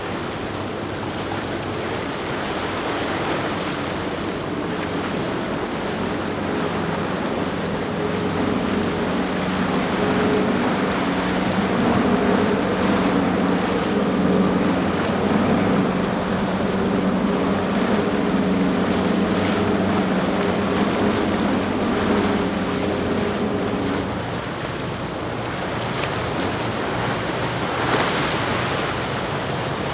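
Sea Ray Sundancer cruiser's engines running steadily through the inlet over the splash and rush of waves and boat wake. The engine hum drops away about twenty-four seconds in, leaving the water wash.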